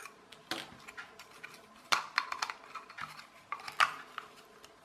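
SELC 8480 street-light photocell switch being handled and prised apart: a string of sharp clicks and knocks from its casing, loudest about two and four seconds in.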